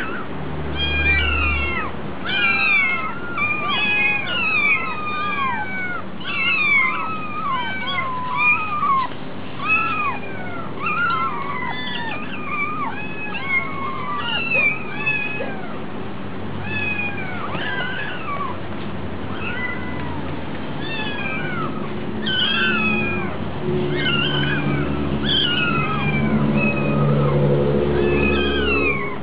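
Several hungry kittens meowing over and over, high-pitched overlapping meows two or three a second. In the last few seconds a low steady hum comes in under the meows.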